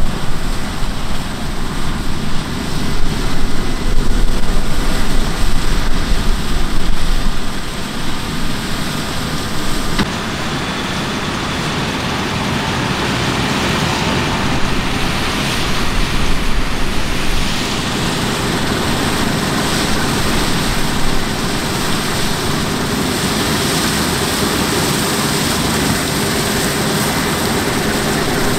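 Heavy farm machinery running steadily in a harvest field. Wind buffets the microphone with a gusty rumble for the first several seconds, and after about ten seconds the sound settles into a steady even drone.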